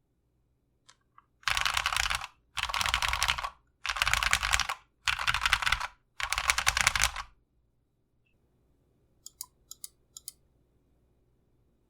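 Mechanical keyboard with lubed Glorious Panda tactile switches and PBT keycaps, keys tapped rapidly in five bursts of about a second each. A few faint, scattered key clicks follow near the end.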